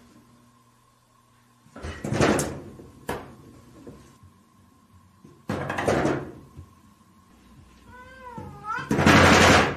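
A cat meows once, a wavering call about eight seconds in. Three loud rattling crashes come from a wooden sliding door with frosted glass panes as the cats bump against it, the loudest right after the meow.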